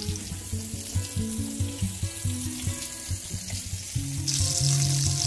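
Background music with a steady bass line, under which pork chops sizzle in oil in an enameled cast iron skillet. The sizzle turns loud suddenly about four seconds in.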